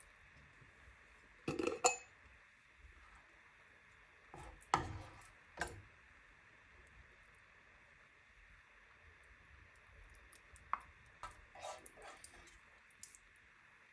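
Kitchen utensils knocking and clinking against pots and glassware now and then, a few sharp knocks with quiet gaps between, over a faint steady hum.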